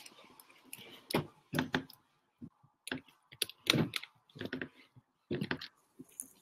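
Irregular clicks and taps on a computer keyboard, some single and some in quick little clusters, picked up close to the microphone.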